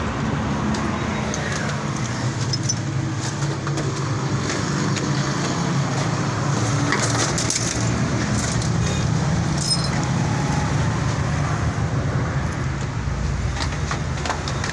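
A car engine idling steadily, with scattered light clicks and knocks over it.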